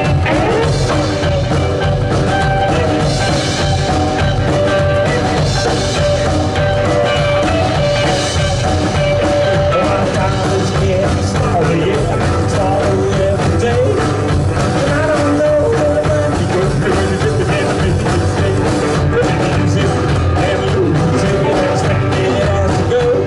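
Rock band playing a rock-and-roll song live, with a singer over the band.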